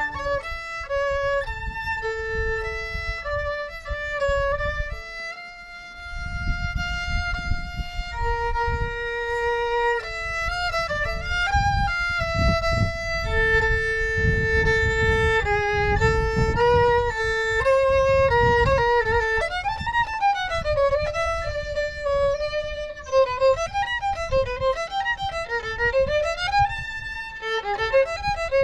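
Solo violin played outdoors: a single melodic line of long held notes, turning in the last third to quicker notes that slide and waver in pitch.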